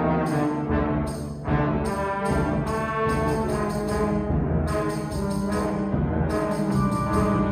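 School concert band playing, with brass sounding sustained chords that move through several changes.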